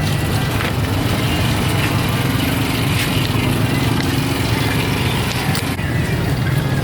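An engine running steadily with a low hum, amid the general noise of the street.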